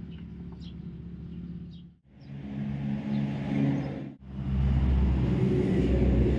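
A motor running with a low steady hum, cut off abruptly twice and louder after the second break; faint bird chirps in the first two seconds.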